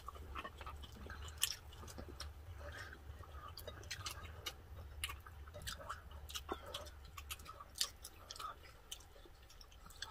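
Close-up mouth sounds of people eating crispy deep-fried pork leg (lechon pata) with rice: irregular chewing, with sharp crackles and wet clicks scattered throughout. A low steady hum runs underneath.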